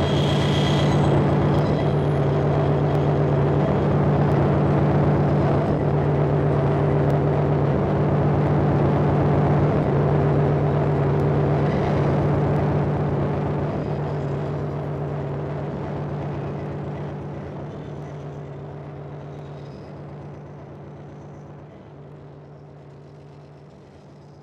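Harsh power-electronics noise from a modular synthesizer and mixer: a loud, dense drone with steady low humming tones under a grainy, rapidly pulsing texture, with a brief high hiss in the first second. It fades out steadily over the second half.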